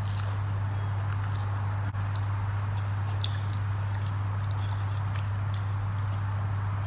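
Fingers mixing rice and curry on a plate, then chewing, heard as many small, scattered soft clicks and squishes over a steady low hum.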